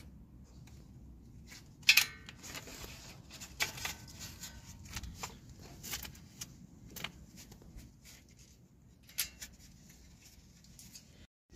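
Scattered light clicks and taps as a new ABS wheel-speed sensor and its metal parts are handled and seated into the steering knuckle. One sharp click about two seconds in is the loudest.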